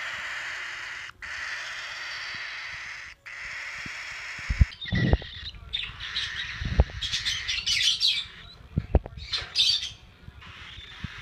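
A steady hiss with short breaks, then from about four seconds in a young caged pet bird giving clusters of sharp, raspy squawks and chirps, with a few low knocks from the phone being handled.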